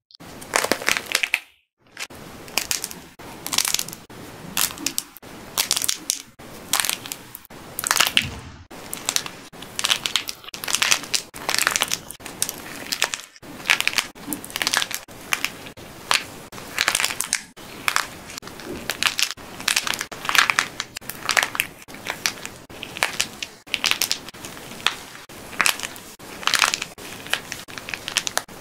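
Hard plaster shell of a clay figure cracking and crackling as it is crushed by hand, in repeated bursts about one a second, the brittle coating breaking into shards over the soft clay beneath.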